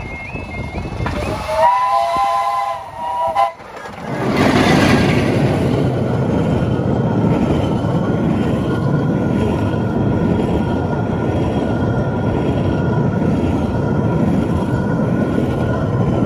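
Level-crossing warning alarm yelping, then the Romney, Hythe & Dymchurch Railway's 15-inch-gauge miniature steam locomotive sounds its multi-note whistle for about two seconds. About four seconds in, the locomotive passes close with a sudden loud rush, and its coaches follow, rumbling steadily over the rails.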